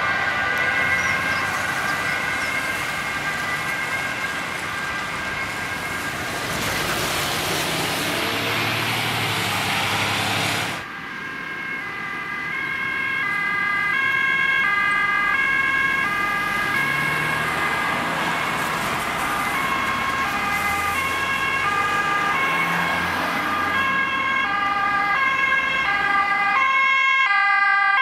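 A Dutch fire engine's siren sounding as it drives away, with traffic and engine noise. After a cut about eleven seconds in, an approaching ambulance's two-tone siren alternates between a high and a low note and grows louder.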